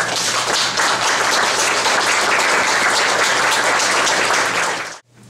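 Audience applauding steadily at the end of a lecture, cutting off suddenly near the end.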